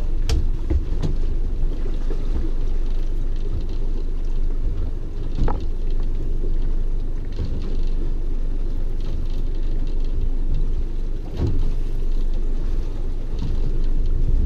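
Steady low rumble of wind and water around a small boat lying at anchor, with a few knocks on the boat, the clearest about five and a half and eleven and a half seconds in.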